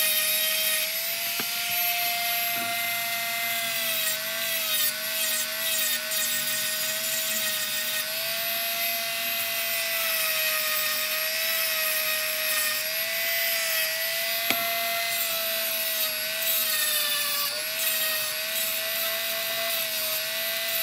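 A Dremel rotary tool running at high speed with a steady whine, its spinning accessory pressed against a steel monkey wrench to clean the metal surface. The pitch dips and wavers slightly as the tool is loaded against the wrench.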